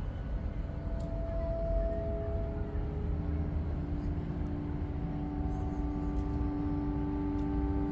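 Steady low rumble of city traffic, with several long, level tones held over it; more tones join about two-thirds of the way through.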